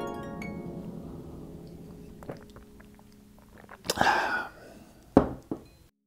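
The last plucked, harp-like notes of a rising run ring and fade. Then a person drinking from a white mug makes a short, noisy slurp and sets the mug down with a sharp thunk and a small click.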